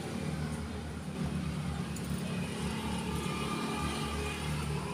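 Steady low rumble of a motor vehicle engine running nearby.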